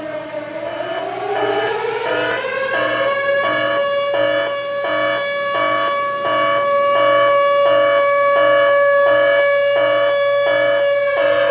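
Red-alert siren sound effect: a wailing tone rises in pitch over the first few seconds and then holds steady, with a second alarm tone pulsing over it about twice a second. Right at the end the wail starts to fall.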